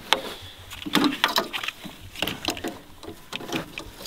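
Irregular metallic clinks and rattles of trailer safety chains and shackles being handled at a tow hitch.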